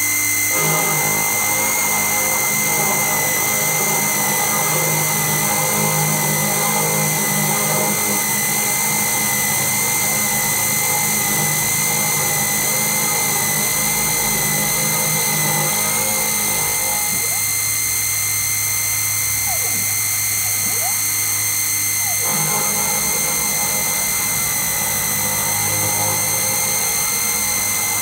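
Home-built CNC router's belt-driven spindle running with a steady high-pitched whine while a small bit bores a hole in plywood. A lower hum under it changes about 17 seconds in and comes back about 22 seconds in.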